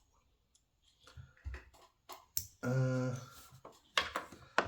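Sharp little clicks and taps of a faucet valve cartridge being handled and turned over in the hands, with a short steady hum of a man's voice a little before the last clicks.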